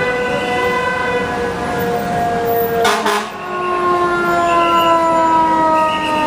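Fire engine siren wailing, its pitch sliding slowly downward. A brief burst of noise comes about three seconds in, and after it the siren carries on lower, still falling slowly.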